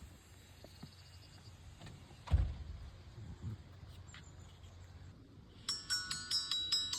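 A single low thump about two seconds in, then, starting near the end, a quick run of bright bell-like notes playing a short tinkling tune.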